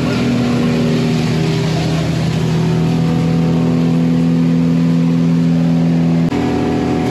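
An engine running at a steady speed, its hum holding one pitch, with an abrupt change in tone about six seconds in.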